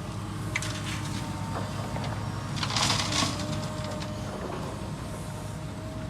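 Heavy construction machinery, likely an excavator, running steadily with a low engine rumble and a faint steady whine, with a few sharp knocks and a louder scraping, crunching burst about three seconds in.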